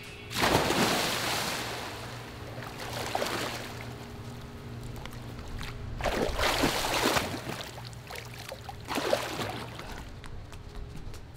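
A person falling into a swimming pool: a big splash about a third of a second in, then water splashing and sloshing in further bursts, the strongest around six to seven seconds and again near nine seconds. A steady low hum runs underneath.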